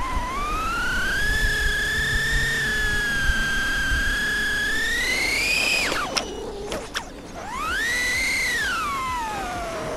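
Brushless motors and propellers of an Eachine Lizard 105S 4S mini FPV racing quad whining, the pitch rising and falling with the throttle. The whine is held high for about six seconds, drops sharply with a few clicks, then climbs to a peak and falls away near the end.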